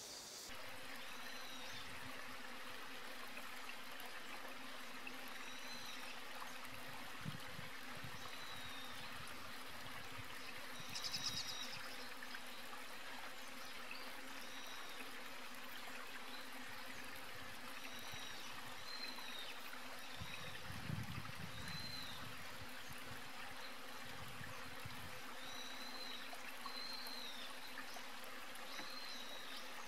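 Steady outdoor ambience, an even hiss like running water or insects, with faint short high chirps every second or two.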